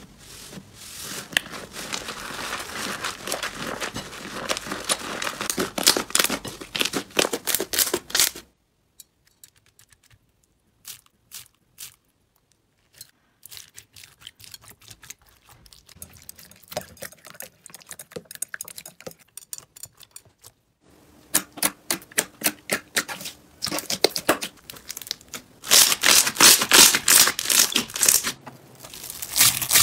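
Hands pressing and squishing slime, a run of sticky crackles and pops. The crackling drops almost to nothing about a third of the way in, stays soft for a while, then grows loud again near the end.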